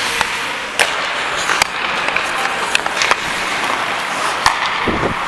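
Ice hockey skate blades scraping and carving across the ice, with a few sharp clacks of sticks striking the puck or ice.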